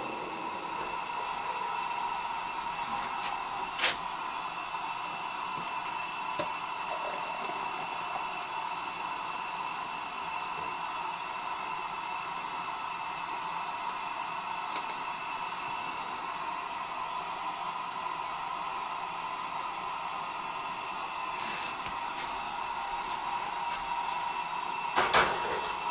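Steady hiss with a faint high steady tone underneath, broken by a single sharp clink about four seconds in and a few light knocks near the end.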